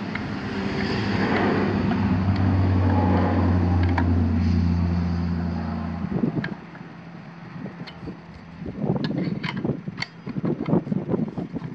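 A steady, low motor drone, loud for the first half, cuts off suddenly about six seconds in. After that come scattered light metallic clicks and taps of an Allen wrench working the bolt on the circular saw's plastic dust chute.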